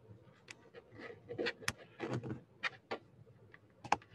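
Irregular sharp clicks and light knocks, about a dozen, with soft rustling between them: the clicking and tapping of someone working a computer that has frozen.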